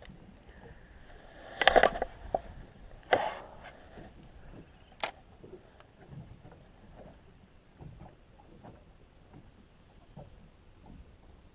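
Small waves lapping and slapping against a boat's hull, heard as many small irregular ticks, with a couple of louder knocks on the boat about two and three seconds in and a single sharp click about five seconds in.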